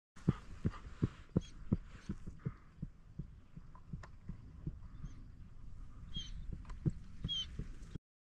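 Faint outdoor field ambience with a run of soft, irregular low thumps, two or three a second, and a few faint, short, high calls from ducks circling overhead, twice near the end.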